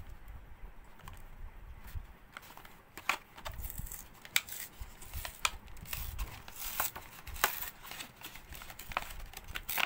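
Plastic blister packaging crinkling and clicking as hands handle it and work it open. The sharp, irregular crackles are sparse at first and come thick and fast from about a quarter of the way in.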